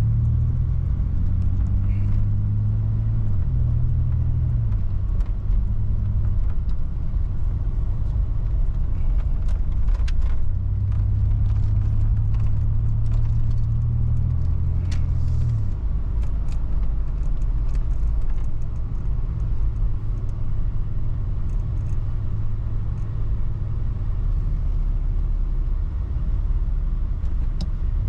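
Chevy S10 Blazer's 4.3 L V6 engine and road noise heard from inside the cabin while driving. The engine note steps in pitch twice in the first half of the drive, then gives way to a steady low rumble.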